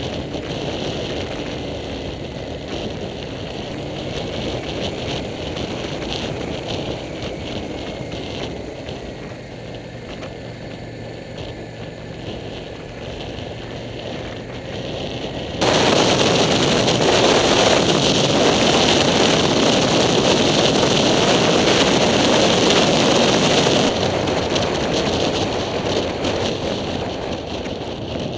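Cruiser motorcycle engine running at road speed under wind rush on the handlebar-mounted microphone. About sixteen seconds in the sound jumps suddenly to loud, even wind buffeting for about eight seconds, then eases off a little.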